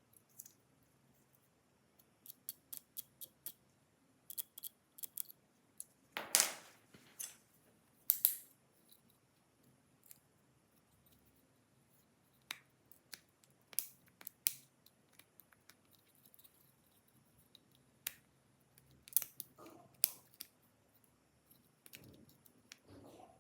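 Small hand tools clicking and snipping at a plastic toy as it is taken apart. A quick run of about six clicks comes a few seconds in, then two louder, longer scraping snips, then scattered clicks.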